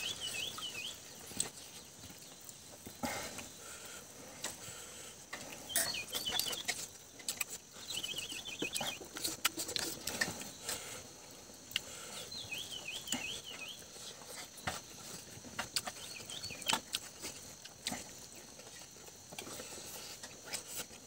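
Close-up eating sounds: chewing, lip smacks and small clicks as rice and curry are eaten by hand off a banana leaf. Behind them a bird repeats a short, rapid trilling call several times.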